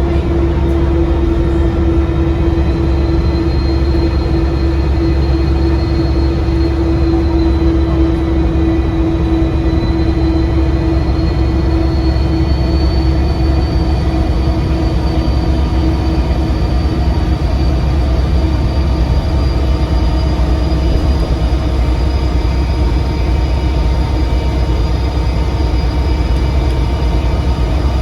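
Diesel engine of a single-decker bus running on the move, heard on board, with a loud high turbocharger whistle over a steady engine drone. The whistle starts about three seconds in and slowly rises in pitch.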